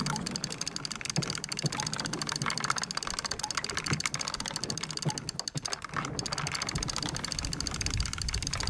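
A roll of packing tape rolling over a rough floor, a rapid steady clicking clatter.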